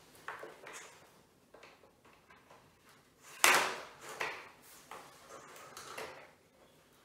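Plastic Scalextric track sections being pushed together and shifted on a wooden floor: a run of scattered knocks, clicks and scrapes, the loudest knock about three and a half seconds in.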